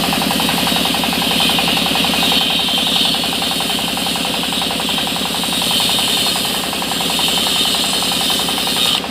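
Sawmill machinery running steadily: a rapid, even engine chugging with a loud high hiss over it.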